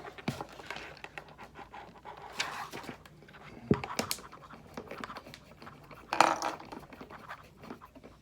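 Small clicks and scrapes of a plastic hockey visor, screws and spacers being worked into a helmet shell with a screwdriver, with two louder breathy rushes about two and a half and six seconds in.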